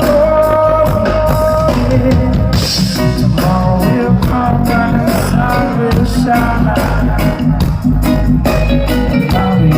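Live reggae band playing: a sung note is held for about a second and a half, then guitar, bass and drums carry on.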